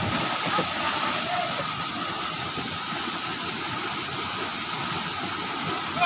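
Steady rush of a small waterfall pouring into a rock plunge pool, with the splash of a person who has just jumped into the pool dying away at the very start.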